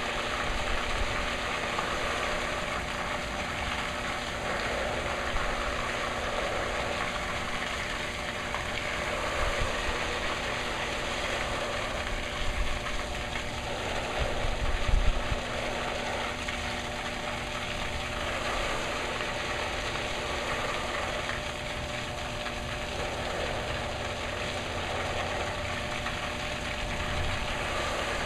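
A rain simulator running at a 12-inch-per-hour rainfall intensity: a steady spray hiss from its overhead nozzles with a steady machine hum underneath, and a few low thumps around the middle.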